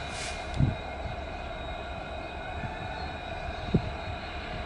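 WDG4 diesel-electric locomotives in multiple, with EMD 16-cylinder two-stroke engines, running steadily with a whine as they approach slowly. There is a brief hiss at the very start and two short low thumps, about half a second in and near the end.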